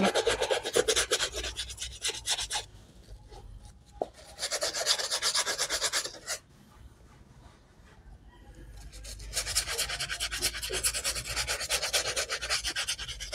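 Soapy shoe brush scrubbing a wet canvas shoe in quick back-and-forth strokes. It goes in three spells: it stops about two and a half seconds in, scrubs again for about two seconds from four seconds in, then pauses and starts again a little after halfway, running on to the end.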